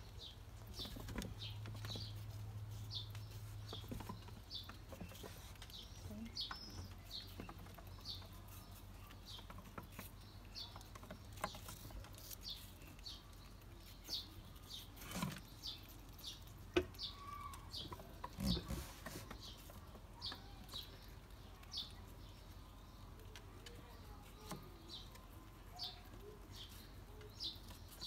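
A small bird chirping repeatedly, one short high chirp about every second, with scattered soft clicks and taps.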